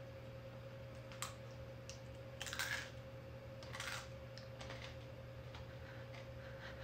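Crunching of a hard-shelled Asian forest scorpion pincer being chewed: a sharp crack about a second in, two louder crunches, then a few lighter clicks. The crunching is described as really crunchy.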